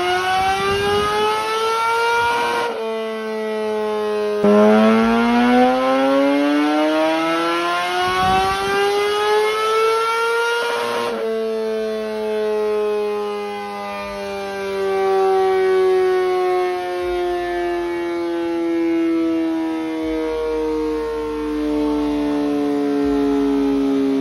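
2020 Kawasaki ZX-10R's inline-four engine run on a roller dyno: a climbing rev ends about three seconds in, the pitch drops and holds briefly, then a second long climb peaks about eleven seconds in. After that the pitch falls slowly as the engine and roller wind down.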